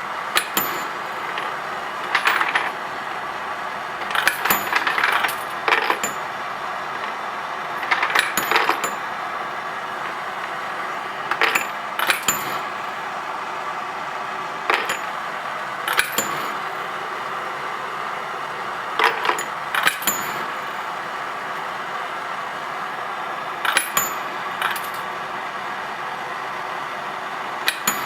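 Brass rifle cases clinking and clattering in short clusters every few seconds as the SASSYBrass case annealer advances and ejects them into the catch bin. Under the clinks runs the steady hiss of the annealing torches and the machine.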